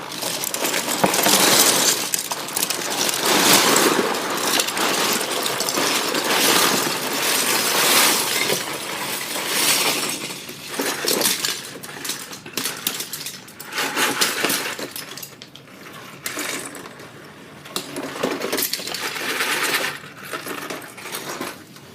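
A large pile of loose plastic LEGO bricks being poured out of a box and shaken, a dense clattering rattle that comes in several waves.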